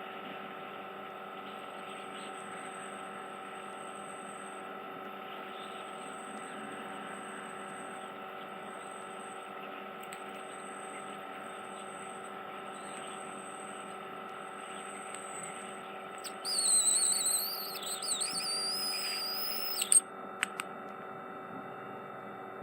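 Ear microsuction machine running with a steady hum and faint high hiss; about three-quarters of the way through, a loud, wavering high squeal for about three and a half seconds as the suction tip draws debris from the ear canal, cut off by a sharp click.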